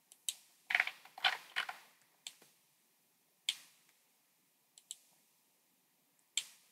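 Computer mouse clicks: a quick run of several in the first second or two, then single clicks a second or more apart.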